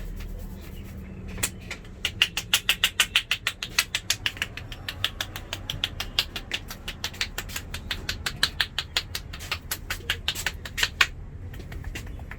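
Quick, even hand slaps on a person's head during a barber's head massage, about six a second. They start about a second and a half in and stop about eleven seconds in.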